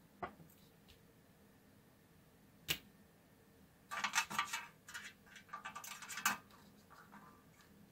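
Handling noise as hands move speaker wire and a soldering iron over a metal cookie tin: a sharp click near the start, another about two and a half seconds in, then two short bouts of light scraping and rattling clicks around four and six seconds in.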